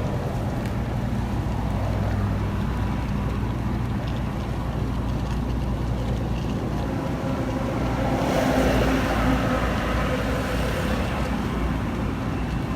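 Motor vehicle engine hum and road noise, steady, with a louder swell about eight seconds in, as from a passing or approaching vehicle.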